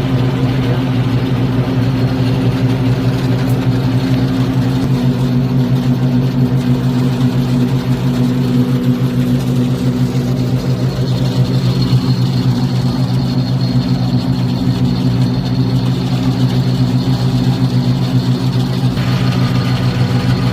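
Concrete mixer truck's diesel engine running steadily at a constant speed, with a faint thin high whine joining about halfway through.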